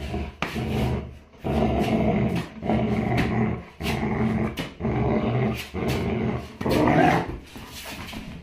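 Labrador play-growling in repeated bouts, about one a second, while tugging on a blanket. The bout near the end is the loudest.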